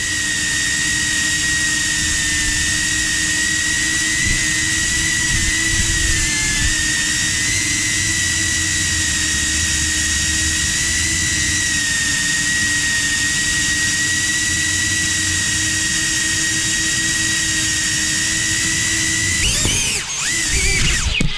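Cinewhoop FPV drone's ducted propellers and brushless motors whining steadily at cruise throttle, recorded by the drone's own onboard camera. Near the end the pitch swoops up and down several times as the throttle changes.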